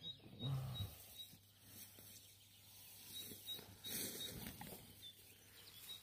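Quiet outdoor ambience: soft rustling among plants, with a faint high chirp repeating at uneven intervals.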